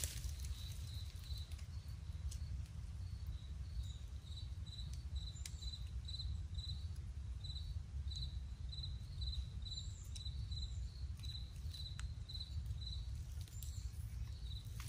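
Insect chirping in a steady rhythm, about two to three short high chirps a second, over a low steady rumble.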